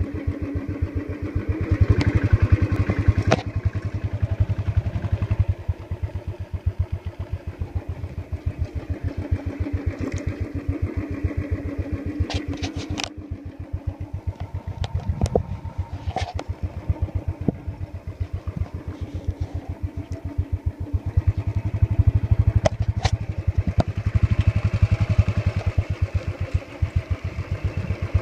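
Royal Enfield single-cylinder motorcycle engine running at low speed as the bike is ridden slowly over rough dirt, a steady even beat of exhaust pulses. It gets louder about two seconds in and again about three-quarters of the way through, with a few sharp clicks in between.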